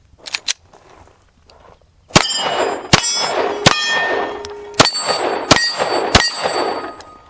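Six shots in about four seconds, each followed by the ringing clang of an AR500 steel target plate being hit, with a slightly longer pause after the third.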